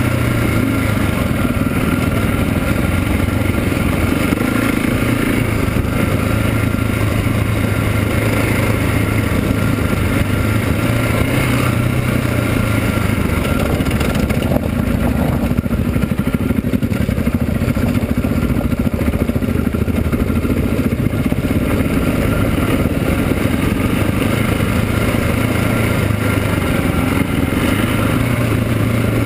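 KTM 690 SMC's single-cylinder four-stroke engine running steadily as the bike rides a dirt trail, its note dropping a little lower through the middle stretch.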